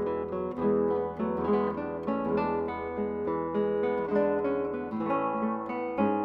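Background music: an acoustic guitar playing a run of plucked notes over a held low bass note, which changes about five seconds in.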